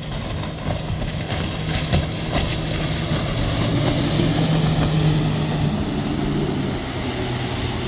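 Outboard motor of a Larsen Marine cuddy cabin boat running at speed as the boat passes close by, over the rush of hull and spray on the water. The engine's pitch drops slightly as it goes past, about two-thirds of the way through.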